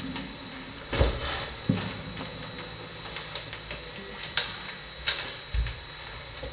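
A handful of light knocks and clicks spread through, the heaviest thumps about a second in, with a faint steady high-pitched tone underneath.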